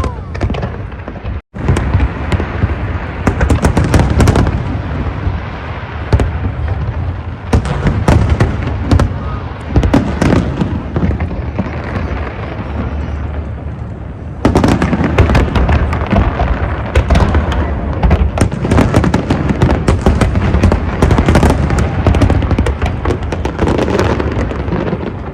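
Fireworks display: a dense, continuous barrage of bangs and crackling, with a brief dropout about a second and a half in and a louder, thicker stretch from about halfway through.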